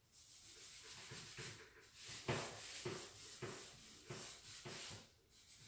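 Cloth rag rubbing black furniture wax onto a painted drawer front in quick back-and-forth strokes, about two a second, stopping about five seconds in.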